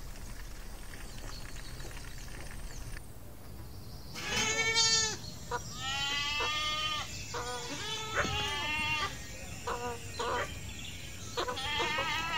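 Goats bleating: a string of wavering calls of differing pitch, one after another with short gaps, starting about four seconds in.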